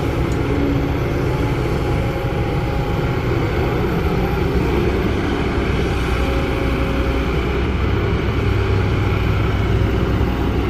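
Kobelco SK200 hydraulic excavator's diesel engine running steadily under load as it digs and moves soil.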